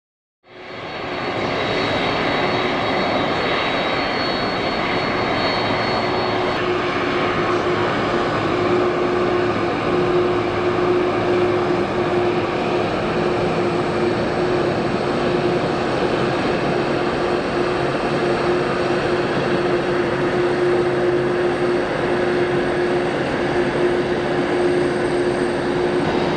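Boeing 767-400ER's General Electric CF6-80C2 turbofans running at taxi power as the airliner rolls past, a steady jet hum with a clear mid-pitched tone held throughout. It fades in within the first second, and a higher whistle sounds for the first several seconds, then stops.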